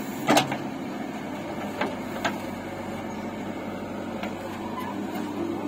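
JCB 3DX backhoe loader's diesel engine running steadily while the backhoe digs rocky soil. Over it come a sharp knock just after the start and a few lighter clicks later, from the bucket striking and scraping stones.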